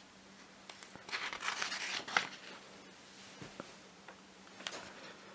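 Soft rustling of paper pages handled by a hand, with a sharp tick about two seconds in and a few faint ticks later.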